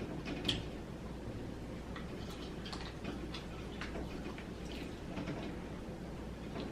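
Close-up eating sounds of a person chewing fried chicken wings: irregular short mouth clicks and smacks.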